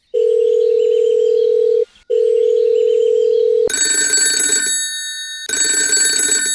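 Telephone call tones: a steady low ringback tone sounds twice, each about 1.7 s long, then a shrill electronic phone ring sounds twice.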